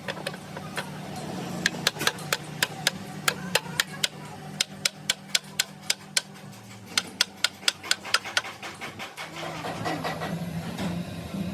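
Rapid, evenly spaced sharp metal taps, about four a second, over a steady low machine hum; the tapping stops about eight and a half seconds in while the hum runs on.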